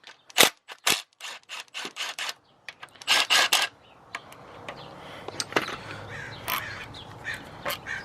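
Hand ratchet clicking in quick runs as bolts are backed out of the timing chain tensioner on a 2.0 EcoBoost engine. After about four seconds it gives way to a softer steady noise with a few scattered metal clicks.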